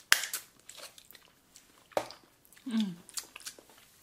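Close-miked mouth sounds of two people tasting sour gel candy licked off their fingers: wet lip smacks and tongue clicks, the loudest right at the start and another about two seconds in, with a short falling hum near the end.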